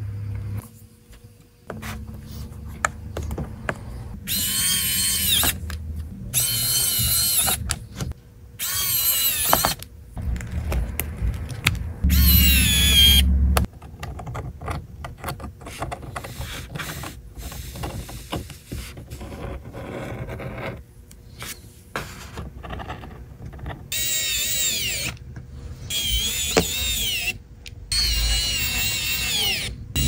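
Small electric screwdriver whirring in seven short bursts of a second or so each, its pitch wavering, four in the first half and three near the end, with light clicks and handling sounds between.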